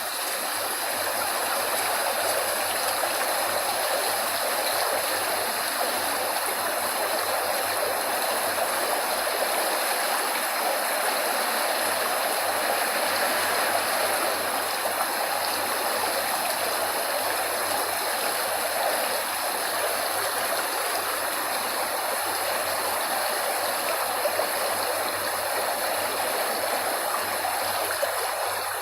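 Running water of a stream: a steady, even rushing with no breaks.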